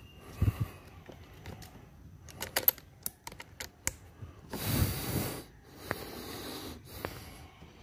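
Scattered sharp clicks and knocks of the rifle and scope camera being handled, with a short rush of noise about five seconds in.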